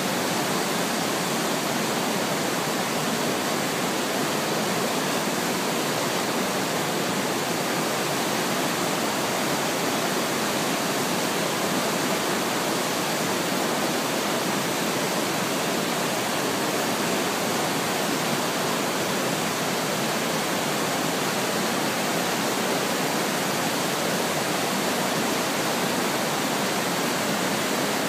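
Steady, unbroken rushing of the Iguazu Falls, a very large waterfall, as the river pours through rapids and over the brink.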